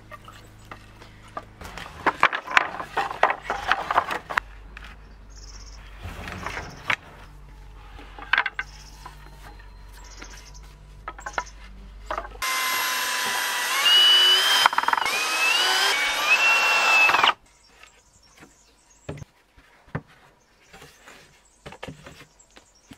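Cordless drill running for about five seconds, driving screws into pallet-wood boards, its motor whine rising in steps. Before it come knocks and clatter of wooden boards being laid and shifted on concrete.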